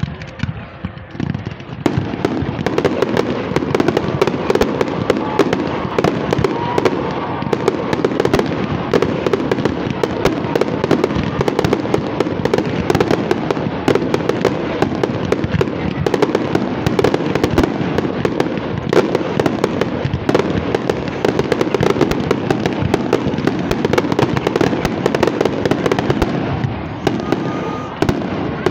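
Fireworks display: a dense, rapid barrage of aerial shell bursts, with bangs coming thick and fast from about two seconds in and thinning out near the end.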